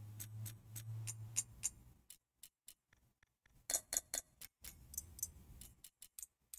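Sound Keyboard app's software click sound effects firing as on-screen Artist Pad buttons are tapped: a rapid run of short, faint clicks, with a brief pause about three seconds in. Each click is audio feedback confirming that a button was pressed.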